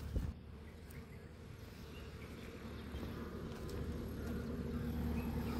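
A brief knock at the start, then the low engine rumble of a truck approaching on a highway, with a steady hum, growing louder through the second half.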